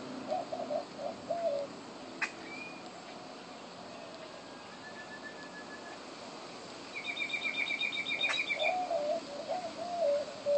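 Wild birds calling: a low, wavering call in short phrases near the start and again through the last few seconds, and a fast, high trill from another bird about seven seconds in.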